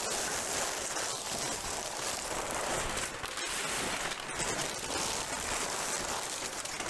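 Crumpled brown kraft packing paper rustling and crinkling steadily as it is handled and pulled out of a large cardboard box.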